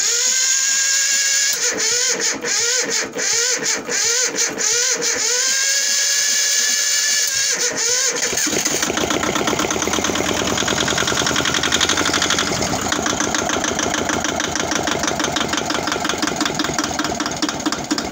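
Yanmar diesel engine being cranked by its electric starter, the starter whine rising and falling with each compression stroke, then catching about eight seconds in and running with a fast, even firing rhythm.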